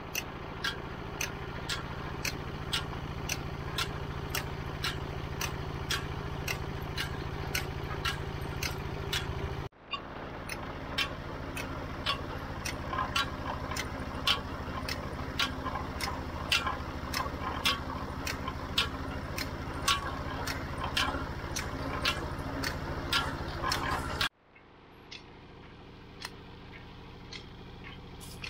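Belt-driven sugarcane crusher running: a steady mechanical hum with a sharp click about twice a second. About three-quarters of the way through it drops to a quieter, fainter hum with only occasional clicks.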